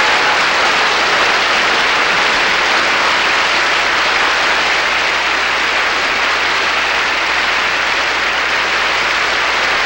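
Audience applauding steadily, a dense, even wash of clapping.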